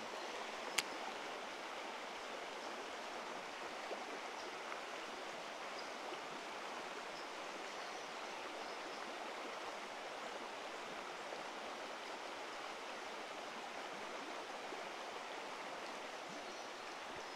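A small rocky river running over stones: a steady rush of water, with one sharp click about a second in.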